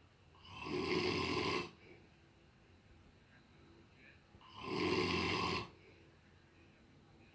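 A man snoring in his sleep: two long snores about three and a half seconds apart, each swelling up over about a second and then stopping.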